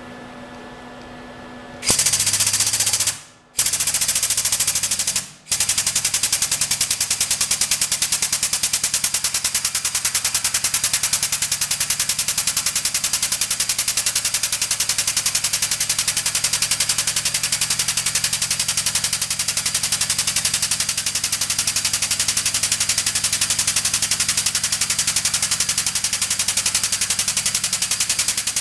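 Air-over-hydraulic 12-ton jack's air-driven pump running, a loud, fast, even rattle that starts about two seconds in. It cuts out twice briefly in the next few seconds, then runs on steadily as the jack extends and swings the tubing bender's die.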